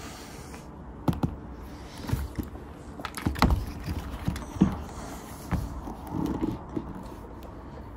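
Scattered clicks and knocks, about a dozen at irregular intervals, the loudest about three and a half and four and a half seconds in.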